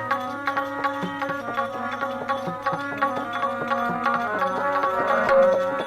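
Instrumental interlude of a Gujarati devotional bhajan: tabla played in a steady rhythm under held melodic accompaniment notes.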